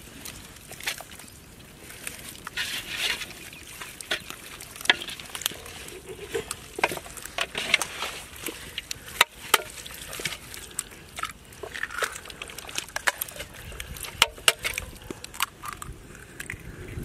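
Hands squishing and slapping raw chicken legs as they work garlic-ginger paste and ground pepper into them in a large aluminium pot: irregular wet smacks with sharp clicks.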